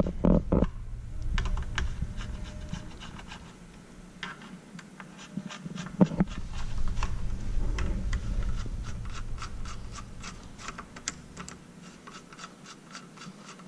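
Small metal ticks and scrapes of a driver turning the steel cap screws out of a scope ring: an uneven run of light clicks, with one sharper click about six seconds in.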